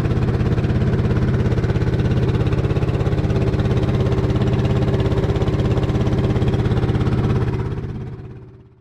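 Small wooden fishing boat's engine running steadily with a fast, even pulse, fading out over the last second or so.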